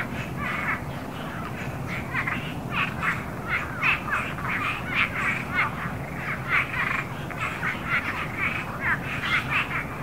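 A chorus of many frogs calling: short, overlapping calls follow one another irregularly, several each second, over a steady low background.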